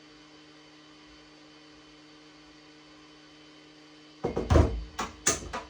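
A faint steady hum, then about four seconds in a quick run of loud knocks and clatter, several hard strikes close together.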